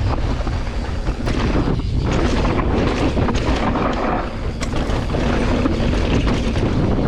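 Wind rumbling on the microphone while riding an electric mountain bike, with scattered knocks and rattles from the bike over rough trail.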